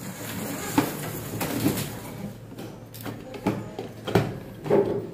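Orange corrugated flexible PVC conduit and plastic fittings being handled and fitted to a male adapter: several short plastic clicks and knocks.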